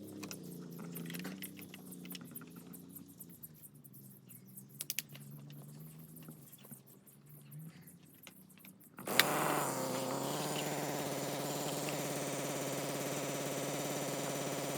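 Faint clicks of handling, then about nine seconds in an Alpina TB34 petrol brush cutter's engine starts with a sharp click and settles into a steady idle.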